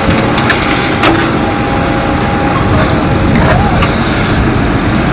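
Heavy diesel engine running steadily and loud, a dense low rumble with a few light clicks and knocks over it.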